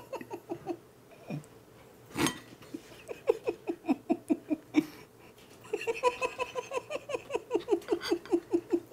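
Two men laughing with their mouths closed: quick, rhythmic stifled chuckles, about five pulses a second, tailing off early, then building again and getting louder in the second half. A short knock comes near the middle.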